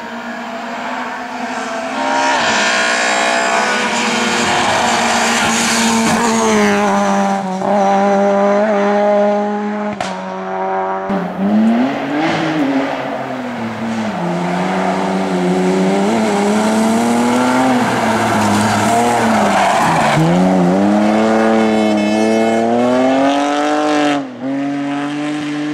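Rally car engine under hard throttle, revs held high, then repeatedly dropping and climbing again as it shifts and lifts for corners. A single sharp crack comes about ten seconds in.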